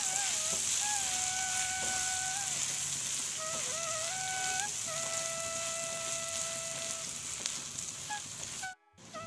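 Grated coconut sizzling as it roasts in oil in a frying pan: a steady frying hiss. A soft flute-like melody plays over it, and the sound drops out briefly near the end.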